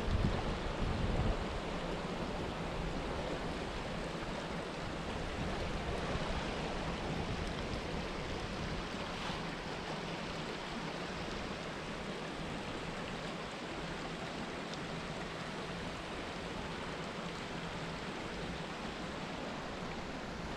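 Shallow rocky mountain stream running over stones and through a fence gate, a steady watery rush. Wind buffets the microphone with low rumbles in the first second and a half.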